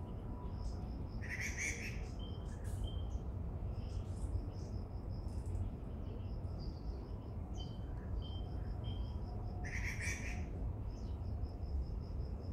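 Several small birds chirping and calling, with quick repeated high chirps and short whistled notes, and two louder bursts of rapid chatter, one about a second in and one near the end. A steady low rumble runs underneath.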